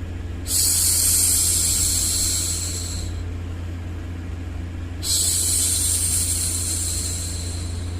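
A woman's voice making a long hushing 'shhh' twice, each lasting about two and a half seconds and tapering off at the end, for soothing a baby. The shushes sit over a steady low white-noise bed.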